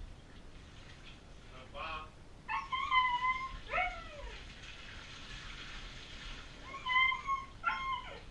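Siberian husky pups vocalizing in their drawn-out, whining husky 'talk': about five calls, some held steady and some sliding down in pitch, with a pause of a couple of seconds in the middle.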